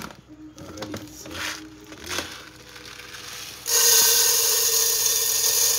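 Dry rice poured from a plastic bag into an empty stainless steel pot: a sudden, loud, steady hiss and rattle of grains striking the metal, starting near the end. Before it come quieter handling sounds.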